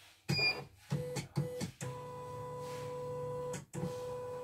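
Portable CNY embroidery machine beeps once, then its embroidery unit's motors whine through a few short moves and two longer runs as the hoop carriage travels. The whine is a steady pitched hum that breaks off briefly about three and a half seconds in.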